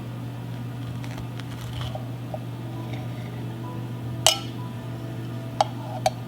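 A utensil clinking against the cake pan and a plate as a slice of cake is cut and lifted out: one sharp clink about four seconds in and two lighter ones near the end, over a steady low hum.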